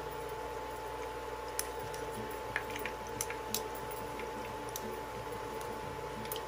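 Meatballs frying in shallow oil: a steady sizzle with a few sharp pops. A metal spoon scoops and squishes wet ground-meat mixture in a bowl.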